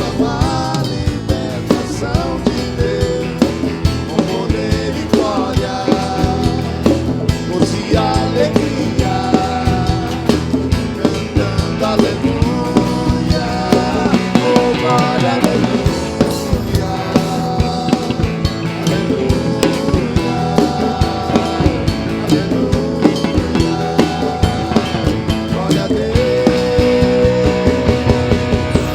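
Band music: drum kit, bass and guitars playing a Brazilian Christian rock song, with a melody line over a steady drum beat.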